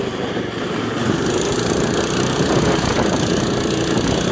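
Small engine of a motorized snowboard running steadily under throttle as the board rides over the snow.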